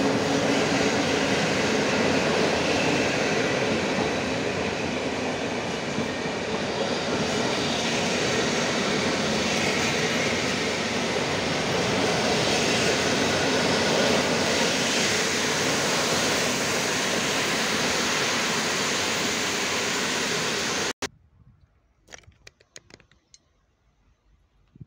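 PKP Intercity passenger coaches rolling past along the platform: a steady rush of wheel and rail noise. It cuts off suddenly about 21 seconds in, leaving only faint scattered sounds.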